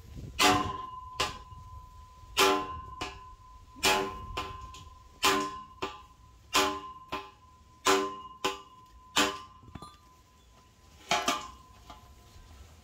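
Repeated metal-on-metal strikes on a galvanized steel well pipe, each ringing briefly with a bell-like tone, about one every second and a half, most followed by a lighter tap.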